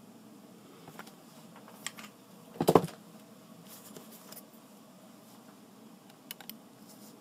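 Small handling noises on a workbench: a short knock about two and a half seconds in as the flux syringe is set down, and light clicks near the end as metal tweezers pick up a small surface-mount chip.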